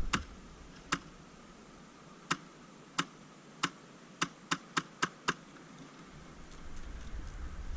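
Airsoft gun firing single shots: about ten sharp cracks, spaced a second or so apart at first, then five fired quickly in about a second near the middle.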